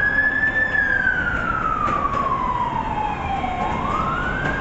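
Emergency vehicle siren wailing: the pitch rises, holds, slides slowly down over about three seconds, then starts climbing again near the end.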